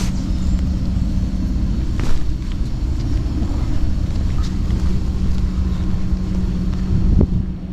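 Low rumble of wind buffeting the camera microphone, with a steady low hum under it and a couple of brief knocks, about two seconds in and near the end.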